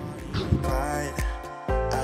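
Background music: an instrumental stretch of a song with sustained chords over deep bass notes, growing fuller about half a second in.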